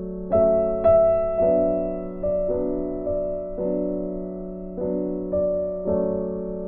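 Background piano music: slow chords and notes struck about once a second, each ringing and fading.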